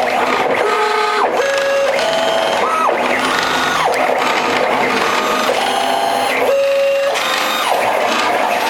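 Stepper motors of a home-built CNC machine driving its axes, whining in steady tones that jump to a new pitch with each move, several times a second, over a constant mechanical hiss.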